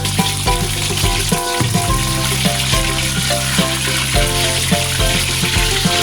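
Cornstarch-coated chicken thighs sizzling as they fry in hot oil, over background music with a steady beat and short melodic notes.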